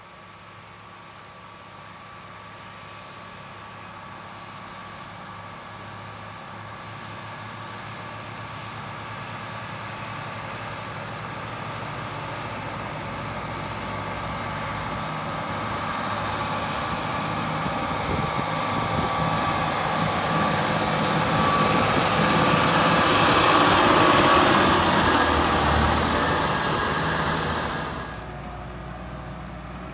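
New Holland T8 tractor pulling a ripper-bedder through dry soil, its diesel engine under load growing steadily louder as it approaches. A thin high whine rides over the engine and slides down in pitch as the tractor passes, about 25 seconds in. The sound falls away abruptly near the end.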